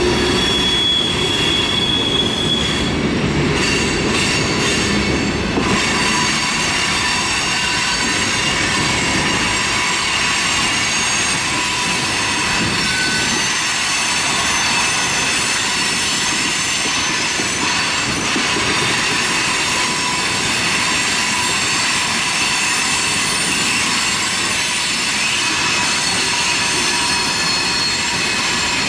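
Freight train of tank cars and covered hoppers rolling past, with a steady rumble from the cars and steel wheels squealing on the curve in several thin, high tones.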